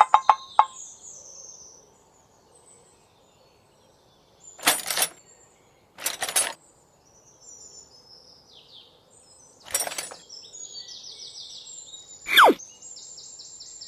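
Birds chirping, broken by three short whooshing sounds and, near the end, a sharp whistle falling steeply in pitch.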